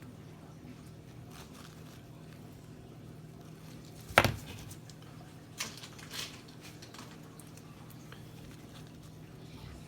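A sharp knock about four seconds in, then two softer clicks a couple of seconds later, over a faint steady hum.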